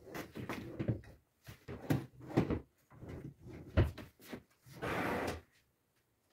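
Furniture knocks and clunks as a transforming chest of drawers is worked, then a pull-out table slides out from its side on a metal drawer runner with a short steady scraping slide about five seconds in.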